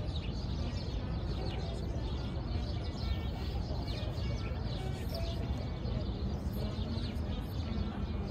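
Small birds chirping, many short high chirps scattered throughout, over a steady low city hum.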